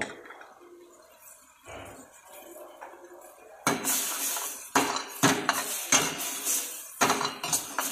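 Steel ladle scraping and clinking against a stainless steel frying pan as a brothy mushroom and vegetable mixture is stirred. It starts about halfway through, in quick repeated strokes of roughly two a second.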